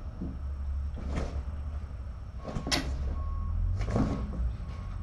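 Steady low hum, with a few short knocks and rustles over it, the sharpest a little under three seconds in.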